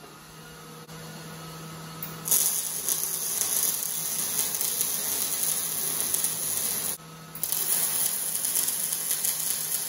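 Wire-feed welder arc crackling and hissing as a bead is laid on steel square tubing. The arc strikes about two seconds in, stops briefly about seven seconds in, then starts again.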